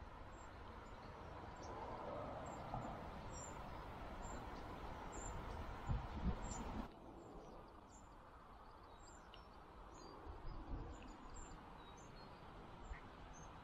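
Small birds chirping repeatedly over a faint, steady outdoor hiss. The hiss drops away abruptly about seven seconds in.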